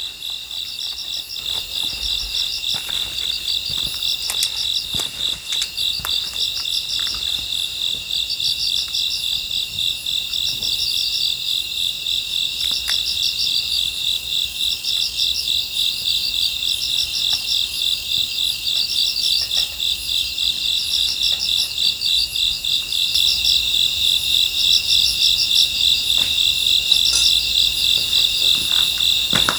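A chorus of crickets chirping at night. A steady, high pulsing trill runs underneath, and a higher chirping phrase repeats roughly once a second, growing a little louder near the end.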